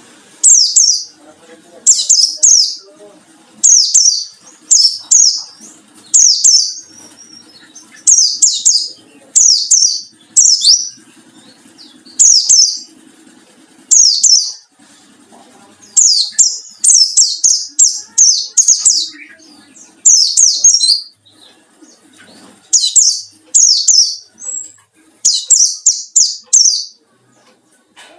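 A white-eye (pleci) calling in short, loud bursts of high chirps, repeated about once or twice a second with brief gaps, denser in the middle. It is the wild 'ngalas' call of a bird seeking a rival.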